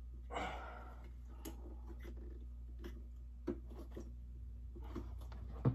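Scattered light clicks and knocks of metal parts being handled as a snap pin is worked into an animatronic's metal pole frame, over a steady low hum, with a short swish about half a second in.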